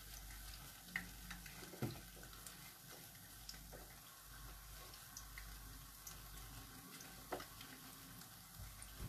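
Faint, steady sizzle of sweet potato fritters deep-frying in oil, with a few light clicks from a utensil.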